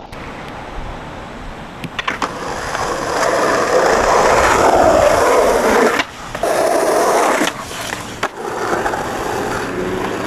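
Skateboard wheels rolling on asphalt, swelling and fading, with a few sharp clacks of the board hitting the ground. The sound changes abruptly a few times between clips.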